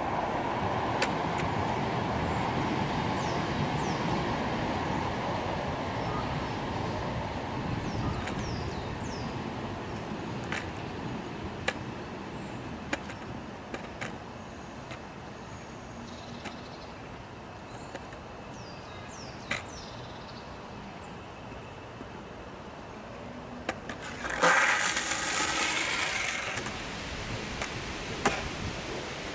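A steady outdoor rushing noise, louder at first, with a few scattered clicks. Near the end, a skateboard comes down onto the concrete with a sudden loud rolling rumble of its wheels for a couple of seconds, then rolls on more quietly.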